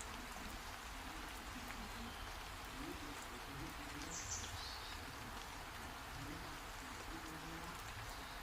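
Steady heavy rain falling, an even hiss, with one short high chirp about four seconds in.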